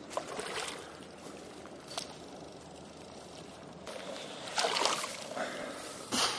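Water sloshing and splashing in irregular bursts as a hooked carp is scooped into a landing net and lifted from the water, the loudest splashes coming about four and a half seconds in and again just before the end.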